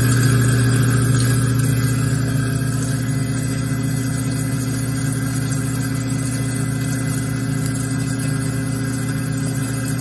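Kitchen garbage disposal motor running steadily with a low hum, churning disposal cleaner tablets, while a thin stream of tap water runs into the sink.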